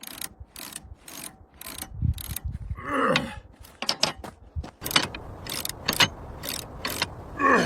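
Irregular metallic clicks and clanks with ratchet-like clicking, from rigging hardware and the metal of an old helicopter being worked on as it is made ready to move. Two short sounds fall in pitch, about three seconds in and near the end.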